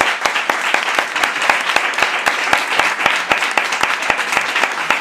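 Audience applauding, a dense, even clapping that goes on steadily.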